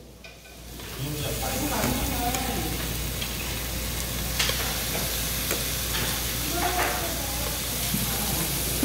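Raw pork belly slices sizzling on a hot griddle as they are laid down one after another, the sizzle building over the first second and then holding steady. A few sharp clicks come through.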